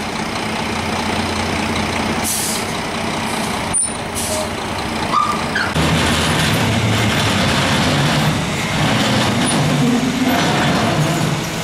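Roll-off truck unloading a large steel recycling container: the diesel engine runs throughout and works harder from about six seconds in as the container is set down, with two short hisses of air early on and a sharp click between them.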